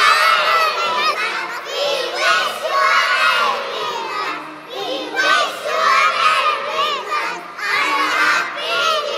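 A group of young children, about four years old, singing loudly together in short phrases.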